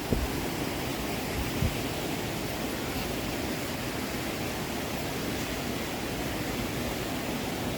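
Steady rush of falling water from Anna Ruby Falls and its creek. There are two brief low bumps, one right at the start and one about a second and a half in.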